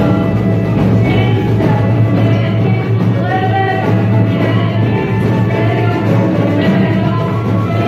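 Live Arabic ensemble music: women singing into microphones over an oud, a darbuka and a violin, playing continuously.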